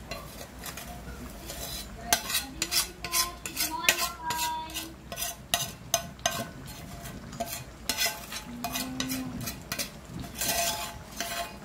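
A spoon scraping and clinking against a metal pan in a quick, irregular run of scrapes and knocks, as a sautéed pork mixture is scraped out into a pot of boiled mung beans.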